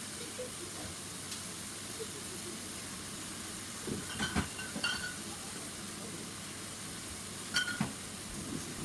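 A steady hiss with a few short metallic clinks from the trampoline's steel frame as it is handled: a cluster about four to five seconds in and another near eight seconds.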